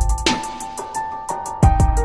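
Electronic background music with a beat: deep kick drums at the start and twice near the end, a sharp snare hit just after the start, quick steady hi-hat ticks and held melody notes.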